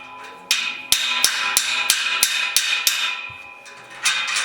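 Metal being struck in a steady rhythm, about three sharp taps a second, each leaving a metallic ring, with a short pause about a second in and another near the end before a rougher scraping burst.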